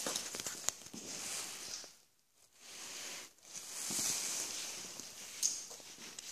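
Footsteps on a gravelly path, coming about once a second, with a short pause about two seconds in.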